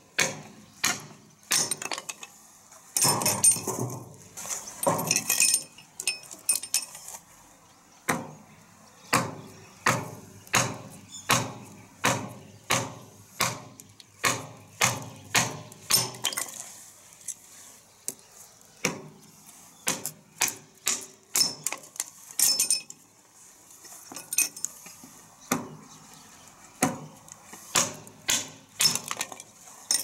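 Small camp hatchet chopping and splitting a short log on a concrete block: dozens of sharp knocks of blade into wood, in runs of about two a second with short pauses, some with a bright metallic edge as the wood splits apart.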